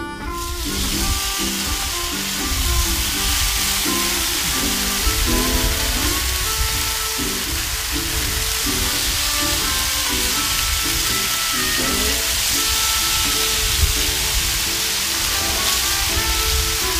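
Raw bacon strips sizzling on a hot steel Blackstone griddle as they are laid down one by one, the sizzle coming up within the first second and then holding steady. Background music plays underneath.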